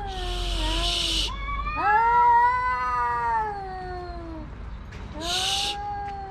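Two male stray cats caterwauling at each other in a territorial standoff: long, wavering yowls that rise and sag in pitch, broken by two short hisses, one at the start and one about five seconds in.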